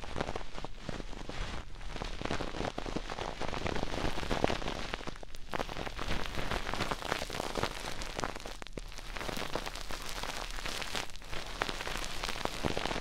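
Dense close-up crackling and scratching as a thin tool is rubbed and worked in the rubber ear of a binaural microphone, with brief breaks about five, nine and eleven seconds in.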